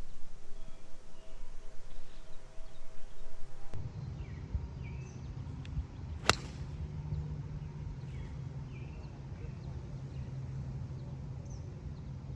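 Birds chirping over a steady low outdoor hum, with one sharp crack about six seconds in: a golf club striking the ball on a tee shot.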